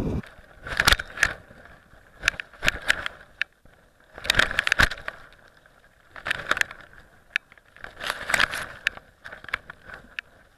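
A small action camera slung under a flying kite rattling and clicking in about five bursts as the kite swings in the wind, with fairly quiet gaps between.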